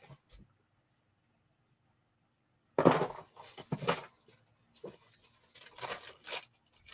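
Near silence, then from about three seconds in a run of short rustles and clicks, the first the loudest.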